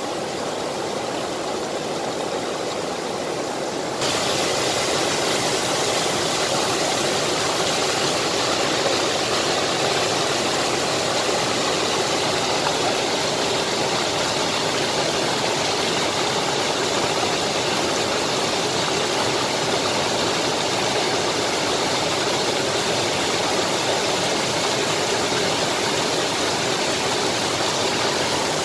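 River in heavy flood, muddy water rushing and pouring over a ledge in a steady, even wash of noise that gets louder and brighter about four seconds in.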